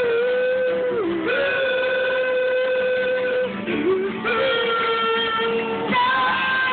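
Music: a voice singing long held notes with acoustic guitar, the pitch dipping briefly between notes about a second in and again near the middle.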